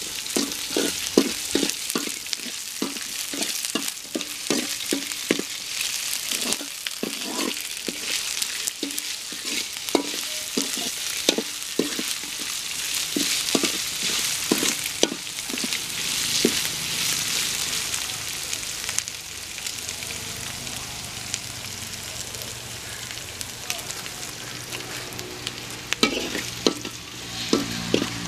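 Sliced shallots and curry leaves sizzling in hot oil in a blackened metal pot, stirred with a steel ladle that scrapes and knocks against the pot about twice a second. The stirring slows past the middle while the sizzling goes on.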